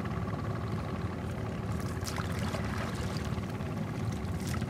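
A wooden paddle working in shallow lake water, with small splashes and drips off the blade, over a steady low rumble.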